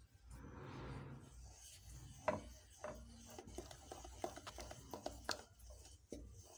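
Wooden spoon stirring whipped cream into a custard in a metal bowl: soft scraping and rubbing with scattered light knocks against the bowl, the sharpest about two seconds in.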